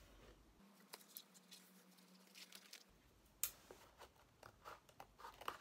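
Faint scattered crackles and clicks of a thin cork sheet and cardboard backing being handled, then trimmed with scissors.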